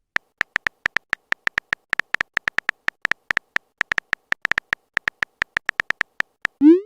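Phone on-screen keyboard typing sound: a quick, uneven run of short identical tapping clicks, roughly six a second, as a message is typed out. Near the end comes a short rising swoosh.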